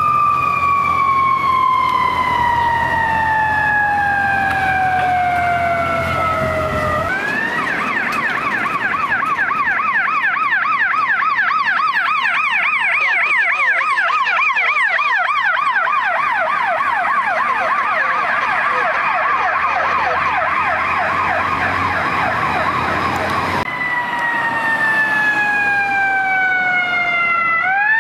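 Fire apparatus electronic siren: a slow wail winding down in pitch, switching about seven seconds in to a fast rising-and-falling yelp, then back to a slow falling wail near the end that starts to climb again.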